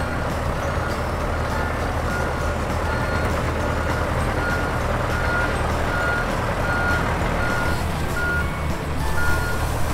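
Heavy machine's reversing alarm beeping steadily, about one and a half beeps a second, over the low, steady hum of its engine running.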